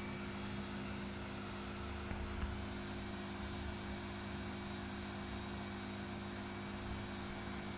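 Household vacuum cleaner running steadily: a constant motor hum with a thin high whine over a rushing air noise.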